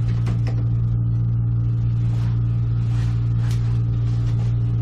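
Steady low machine hum, loud and unchanging, with a few light clicks and scrapes on top.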